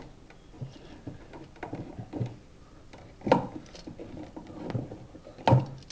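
Scattered light clicks and taps of a wall outlet and copper wire being handled while a wire loop is hooked onto a terminal screw, with two sharper knocks about three and a half seconds and five and a half seconds in.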